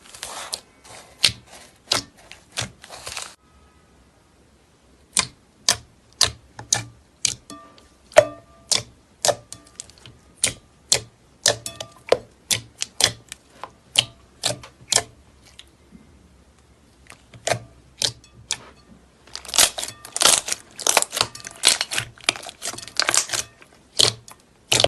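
Slime being pressed and poked, making a run of sharp popping clicks, with spells of dense crackling at the start and again from about twenty seconds in.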